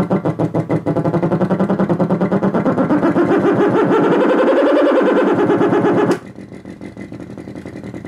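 Synthetic engine sound from a function generator in sweep mode, played through a small speaker: a fast, even pulsing tone like an engine running. Its pitch rises and falls back as the frequency knob is turned. About six seconds in it drops suddenly much quieter with a click and keeps pulsing.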